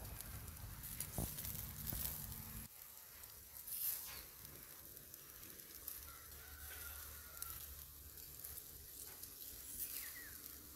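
Pork shashlik on metal skewers sizzling softly over charcoal embers, with scattered small crackles. A low rumble runs underneath during the first few seconds and again in the middle.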